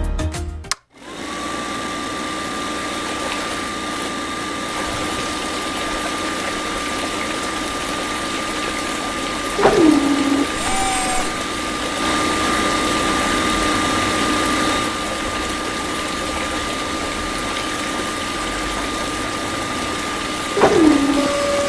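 Small battery-powered electric mini water pump running steadily, with a constant high motor whine over a hiss of moving water. Twice, about ten seconds apart, a brief sound slides down in pitch.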